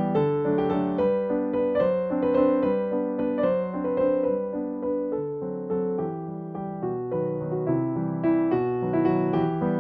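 Background piano music: a melody of single notes over held lower notes.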